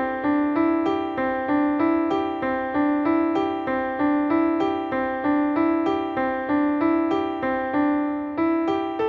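Piano playing a simple one-handed melody, single notes at about three a second, each struck and left to ring briefly before the next.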